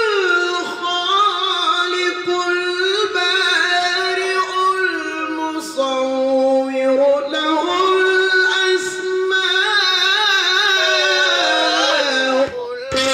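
A male qari reciting the Quran in melodic tilawah style, one voice drawing out long, ornamented held notes that slide between pitches, with a short break near the end.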